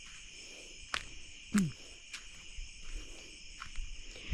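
Steady night chorus of crickets and other insects, with a few faint clicks and, about one and a half seconds in, a short loud sound that drops in pitch.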